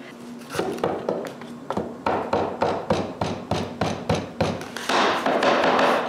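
Repeated light wooden taps and knocks, several a second and irregular, as glued mitred panels are fitted together on domino tenons. A broad rushing noise comes in near the end.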